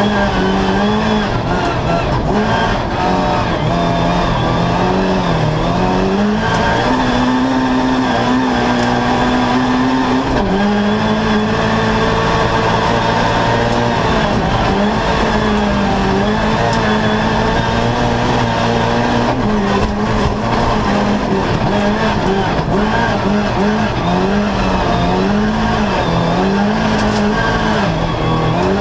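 Opel Corsa rally car's engine heard from inside the cabin, running hard in second and third gear. Its pitch rises and falls over and over as the driver accelerates and lifts through the bends, with tyre and road noise underneath.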